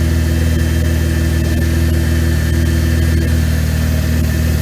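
Chevrolet Camaro's LFX V6 idling steadily just after start-up on a newly fitted 80 mm throttle body and intake manifold spacer; it is running pretty good.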